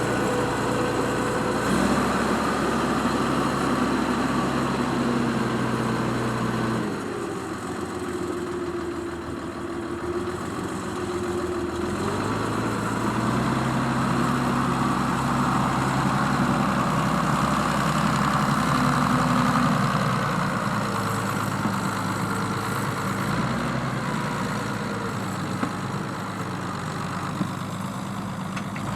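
Zetor Crystal 12145 tractor's diesel engine running steadily while pulling a five-furrow plough through wet ground. About seven seconds in, the engine note drops and eases for several seconds, then picks back up.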